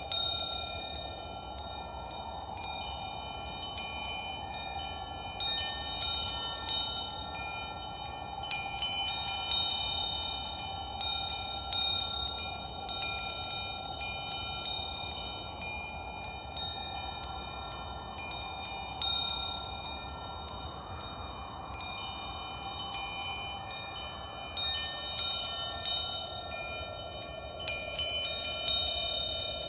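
Metal wind chimes ringing: clusters of clear high tones struck at irregular moments and left to ring on, over a soft steady hiss.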